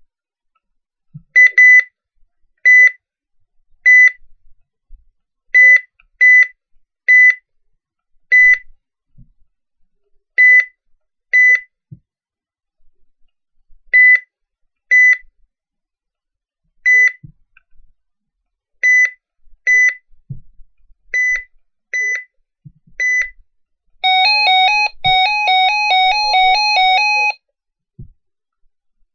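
RadioShack 12-522 handheld weather radio giving short, high key beeps at irregular intervals as its buttons are pressed, then near the end a rapid warbling two-tone alarm for about three seconds.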